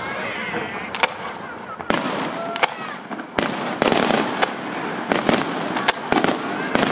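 Fireworks display: aerial shells bursting in a rapid, uneven run of sharp bangs, about a dozen, over a continuous noisy rumble.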